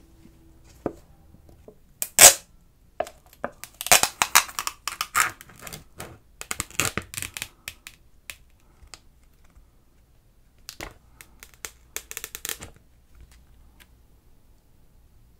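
Foil lid being peeled off a plastic cup of plain yogurt: crinkling and tearing crackles, with one sharp crack about two seconds in and a second short run of crackling about eleven seconds in.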